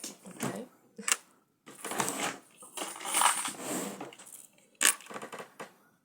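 Tarot cards being shuffled and handled: a few sharp snaps and clicks with stretches of quick riffling rustle.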